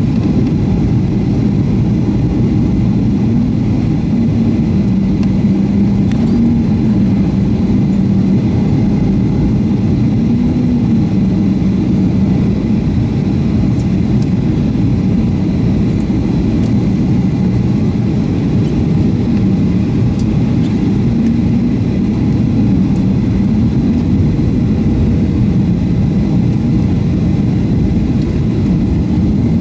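Steady cabin noise inside a Boeing 737-500 on approach with flaps extended: the hum of its CFM56 turbofan engines mixed with rushing airflow, with a low tone that wavers gently in pitch.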